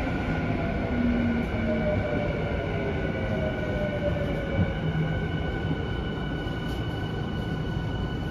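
Interior running sound of a Yokohama Minatomirai Railway Y500-series train with Hitachi IGBT inverter drive: steady wheel and track rumble under several steady high whines and a slowly falling motor whine as the train slows. A single knock about halfway through.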